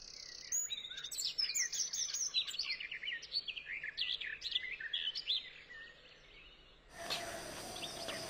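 Small birds chirping, many short quick calls overlapping. The calls thin out about five seconds in, and near the end a louder, hissy outdoor background sets in with more chirps.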